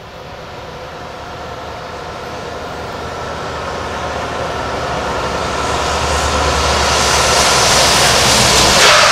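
Volvo FH Globetrotter tractor-trailer approaching at speed, its diesel engine and tyre noise growing steadily louder as it nears.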